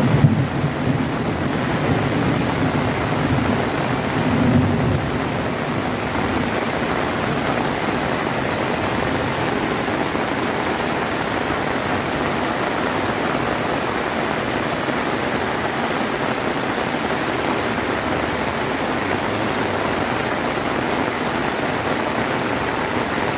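Heavy rain pouring steadily, with a roll of thunder rumbling away over the first few seconds.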